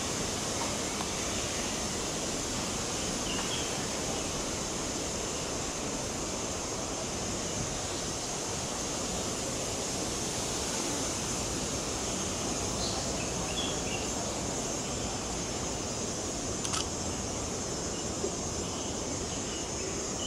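Steady outdoor background noise with a continuous high hiss. A few faint short chirps come and go, and a single sharp click sounds about seventeen seconds in.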